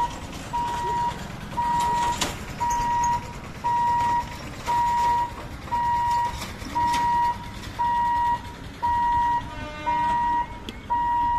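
Level-crossing warning hooter beeping about once a second, each beep a steady single pitch held for about half a second, over passing motorbike and road traffic. A short horn sounds about ten seconds in.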